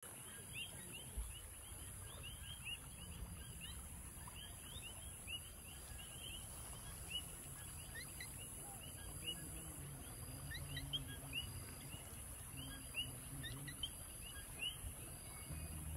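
Outdoor river ambience: a steady chorus of many short, high chirps from small animals, several a second, over the soft low rush of a shallow river flowing over gravel.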